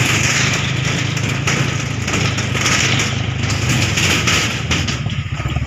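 Motorcycle engine running steadily at low speed while the bike rides along, under a rushing hiss that swells and fades about once a second.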